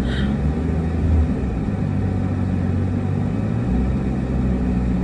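Suzuki Jimny engine free-revved in neutral and held at a low, steady speed of about 2000 rpm, a low drone heard from inside the cabin.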